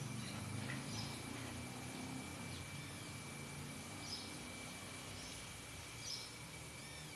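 Outdoor ambience: small birds chirping now and then over a steady thin high tone, with a low rumble during the first couple of seconds.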